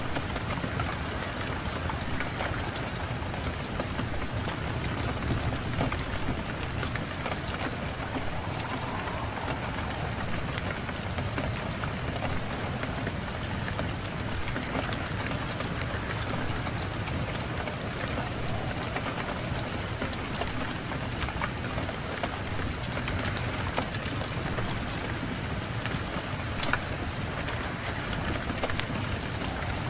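Fireplace fire crackling, with scattered sharp pops, over a steady low rumble of wind.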